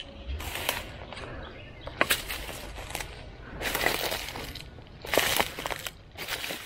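Footsteps crunching through dry leaf litter and sticks: five steps, about one and a half seconds apart, with a few sharp snaps or clinks underfoot.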